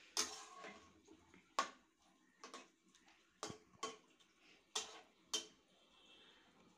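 Metal spoon clinking against the side of a metal cooking pot while stirring dal curry, about seven sharp clinks spaced roughly a second apart.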